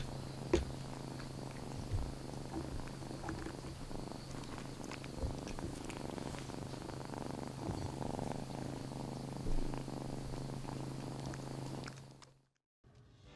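Tortoiseshell kitten purring steadily, close up, as it dozes. The sound fades out near the end.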